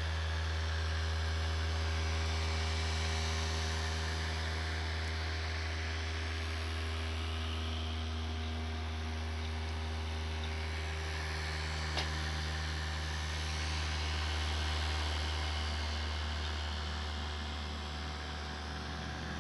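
Newly replaced CPU cooling fan running with an abnormal, steady low hum and several faint whining tones above it. There is one short click about twelve seconds in.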